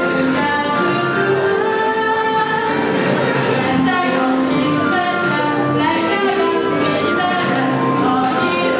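A song from a school stage musical: a girl's voice singing a melody over musical accompaniment, with steady held notes.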